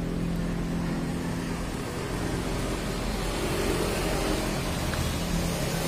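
A steady low motor hum runs unchanged throughout.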